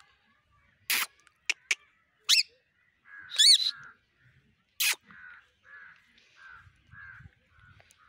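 Rose-ringed parakeets screeching: four loud, harsh calls, the longest a little past three seconds in, with a couple of short clicks among them. From about five seconds on comes a run of softer short calls, about two a second.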